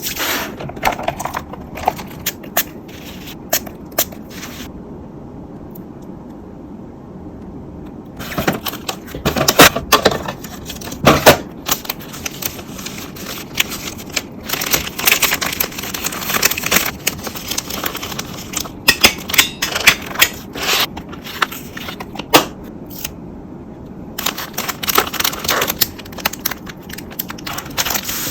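An order being packed by hand: packaging rustling and crinkling, with scrapes and many sharp clicks and taps. A quieter stretch of a few seconds comes early on, then the handling picks up again.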